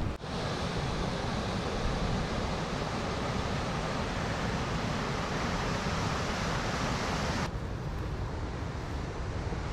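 Rushing water of a river rapid, a whitewater cascade over rocks, heard as a steady hiss over wind buffeting the microphone; the water sound stops abruptly about seven and a half seconds in, leaving the wind rumble.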